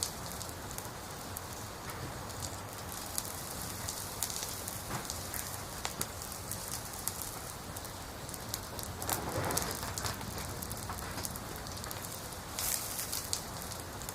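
Wood fire burning, a steady hiss with frequent sharp crackles and pops of the burning logs; a louder flare of crackling about nine seconds in, and another cluster near the end.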